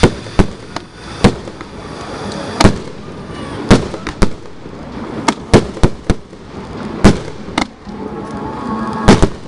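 Fireworks display: aerial shells bursting with sharp bangs, about a dozen at uneven intervals, some following each other in quick pairs.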